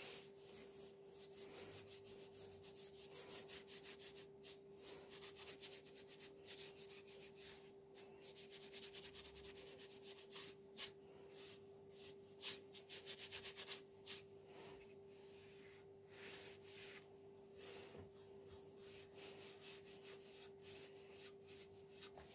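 Sponge pad rubbing a wood finish into a wooden panel in quick back-and-forth strokes, faint, over a steady low hum.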